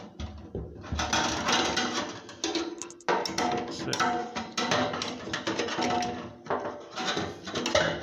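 Metallic rattling and scraping as a fuel tank sender unit is jiggled and turned in the tank's opening to seat it on its lugs, with a few brief ringing clinks of metal on metal.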